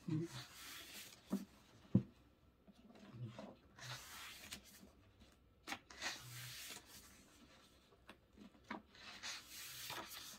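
Pages of an album photobook being turned by hand: several soft rustling sweeps of paper sliding and rubbing, a few seconds apart, with light taps and one sharp tap about two seconds in.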